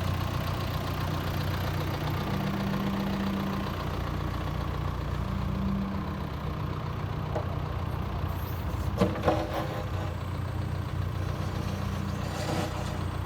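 John Deere 310SK backhoe's diesel engine idling steadily, with a couple of brief sharp knocks about nine seconds in.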